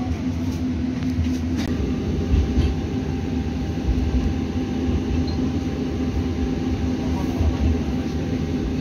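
Tram running along its track, heard from inside the car: a steady low rumble with an even electric motor hum, and a few light clicks about a second and a half in.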